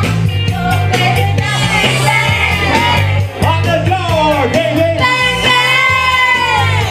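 Rock-style music with a sung vocal over a steady, repeating bass line.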